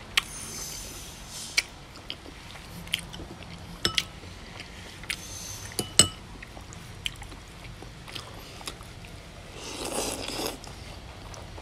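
Close-up eating of noodles and goat meat: chewing with scattered sharp clicks and taps, the loudest about six seconds in. Near the end comes a slurp of noodles lasting about a second.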